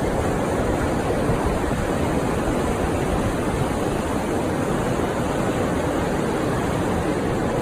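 Ocean surf breaking on a sandy beach, mixed with wind on the microphone: a steady, even rush of noise.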